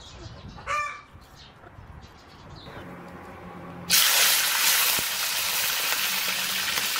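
A chicken gives one short call just under a second in. About four seconds in, a loud, steady sizzling starts abruptly as wet pieces of cooked rooster fry in hot oil in a wok over a wood fire.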